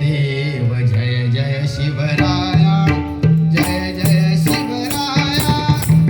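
Devotional bhajan music: an aarti sung to tabla and pakhawaj drumming, with long held notes over steady drum strokes.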